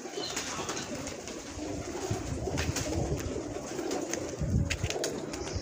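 A flock of Kasuri pigeons cooing together in a low, continuous murmur, with scattered sharp clicks among them.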